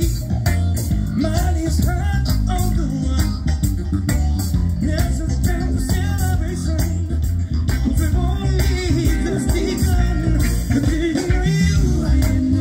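Live band playing: electric guitar, bass guitar, keyboard and drum kit with a steady beat, and a voice singing over it.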